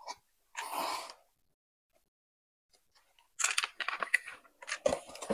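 Plastic Dyson vacuum attachment being handled: a brief soft rustle about half a second in, then a pause, then a run of quick clicks and rattles in the second half.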